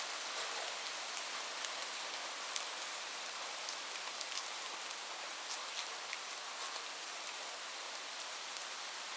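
Steady rain falling on a roof: an even hiss with individual drops ticking sharply here and there.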